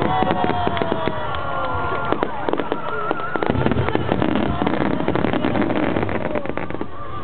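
Aerial fireworks going off in rapid succession close by: dense crackling bursts and bangs, with whistling shells whose high tones glide down and warble.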